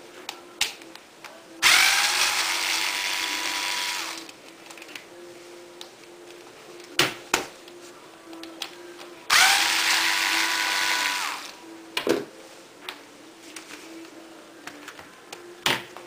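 Cordless electric screwdriver running twice, about two seconds each time, its motor whine rising as it spins up, backing screws out of a plastic hair dryer housing. A few short clicks and knocks of handling come between the runs.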